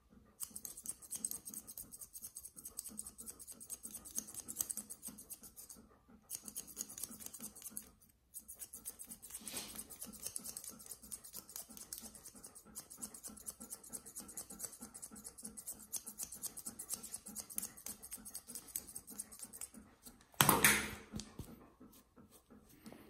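Rapid scratchy strokes on a golden retriever's coat during grooming, going on in quick runs with a few brief pauses. There is one loud sudden noise about twenty seconds in.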